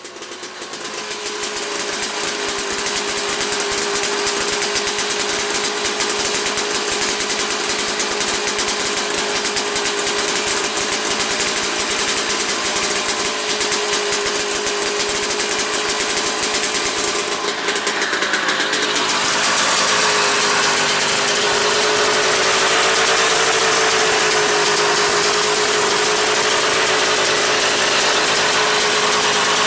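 1972 Ski-Doo Elan's single-cylinder 247 cc Rotax two-stroke engine running steadily at idle. Its sound turns a little brighter about two-thirds of the way through.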